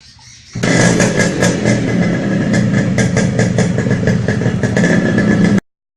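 Single-cylinder motorcycle engine running loud through its exhaust, with irregular sharp crackles. It comes in sharply about half a second in and cuts off abruptly near the end.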